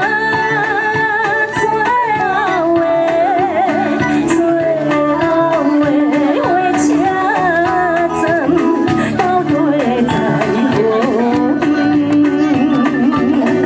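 A woman singing a slow song into a microphone over live band accompaniment; her held notes waver with vibrato.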